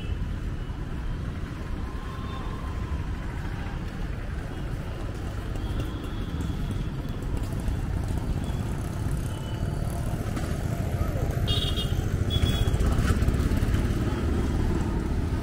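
Steady low rumble of street traffic, with motorbikes and auto-rickshaws passing on the road, growing louder over the last few seconds.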